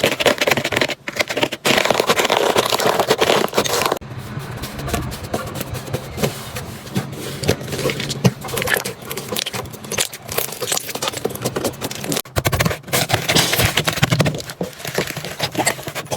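Slime being squeezed and pressed by hand, with dense crackling and popping; the texture of the sound changes abruptly about four seconds in and again near twelve seconds, as one slime gives way to another.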